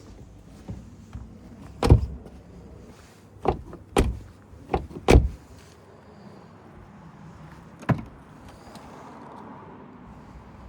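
A series of sharp clunks and knocks, about six in all. The loudest comes about two seconds in, a quick cluster of four follows between about three and a half and five seconds, and a last one lands near eight seconds, over a low steady background hum.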